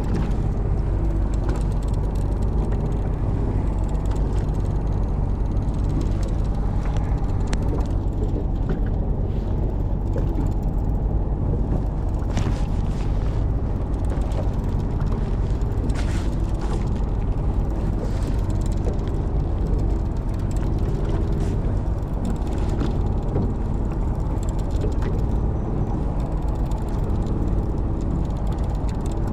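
Boat engine running steadily, a constant low hum, with a few short clicks or knocks in the middle.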